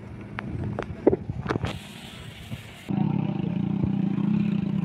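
A few sharp clicks and a short burst of hiss, then a steady low motor hum that starts abruptly near the end and runs on.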